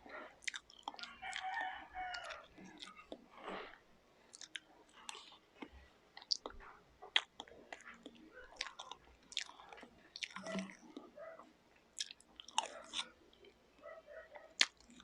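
Chewing and lip smacking while eating cake and mango gulaman salad, heard as a run of small, wet mouth clicks at uneven intervals.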